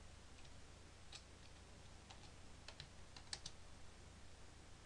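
Faint keystrokes on a computer keyboard: a scattered handful of light, irregular taps.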